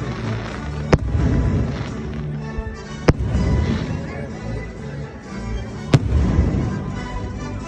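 Fireworks shells bursting, with three sharp booms about two to three seconds apart over a continuous rumble, as orchestral music plays along.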